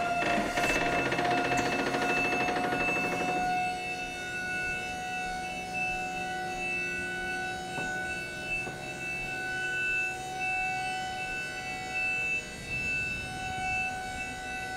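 Electric scissor lift raising its platform: the hydraulic lift pump and motor give a steady high-pitched whine, with a rougher noise over it for the first few seconds.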